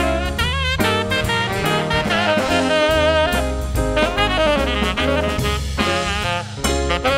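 Jazz big band with a saxophone solo: the saxophone plays a melodic line with wide vibrato over drum kit and bass.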